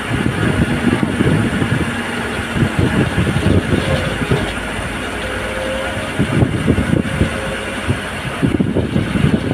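JCB long-reach tracked excavator's diesel engine running steadily, with an uneven low rumble and a faint high whine that comes and goes.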